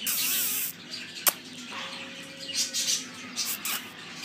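Indian ringneck parakeet making quiet chattering calls. A burst of hiss-like rustling noise comes at the start, and a single sharp click just over a second in.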